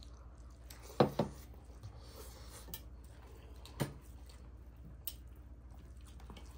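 Hands squishing and mixing rice with dal on brass plates, soft and wet, with a few short sharp sounds: two close together about a second in and another about four seconds in.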